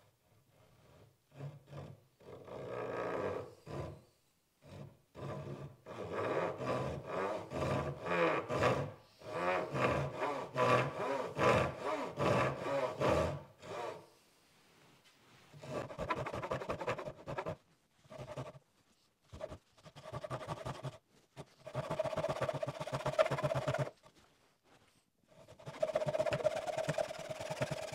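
Japanese backsaw (dozuki) cross-cutting the end of a wooden stool leg to level it, in runs of quick back-and-forth strokes with short pauses. The later strokes carry a steady ringing tone.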